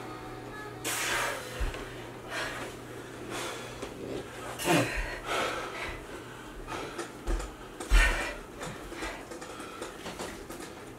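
A person breathing hard in irregular puffs during exercise, with scattered low knocks of movement, the loudest about eight seconds in.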